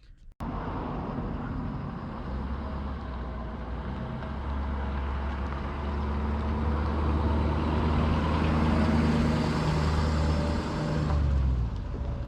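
Vehicle interior or road noise while driving: a steady low engine hum with tyre and road noise. The engine note rises a little, then eases off near the end before the sound cuts off abruptly.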